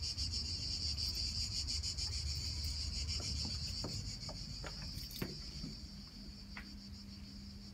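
Insects chirring in a steady, high, pulsing drone, with a low rumble under it for the first few seconds. A run of light clicks and knocks comes around the middle.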